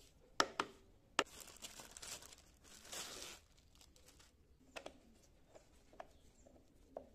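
Gloved hands fitting parts on a lawn mower: a few sharp clicks, then about two seconds of crinkling rustle, then a few light clicks.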